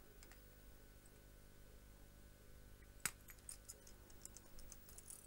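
Near silence, then about three seconds in a single sharp snip of cutters clipping off the excess of a 0.45 mm nickel silver pickup wire, followed by a few faint small clicks.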